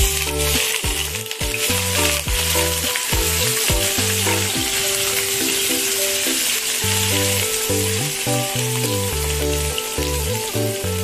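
Sliced lemongrass and ginger sizzling in hot oil in a wok, starting suddenly as they hit the pan and carrying on steadily while they are stirred. Background music plays throughout.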